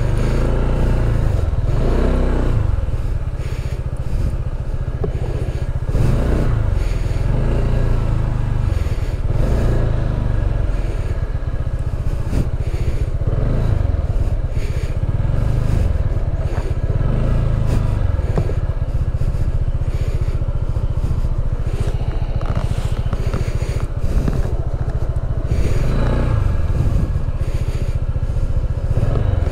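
Honda ADV 160 scooter's single-cylinder engine running steadily while it is ridden off-road, with rattling and scraping from the bike over rough ground.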